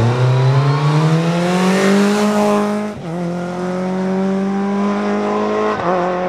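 Renault Clio Ragnotti rally car's 2.0-litre four-cylinder engine accelerating hard past and away. Its pitch climbs to an upshift about three seconds in, then climbs again to a second shift near the end.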